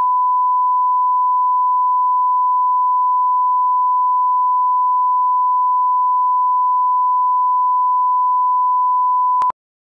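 Steady 1 kHz line-up tone played with SMPTE colour bars, the reference used to set audio levels before a TV commercial. A single unchanging pure pitch that cuts off suddenly about half a second before the end.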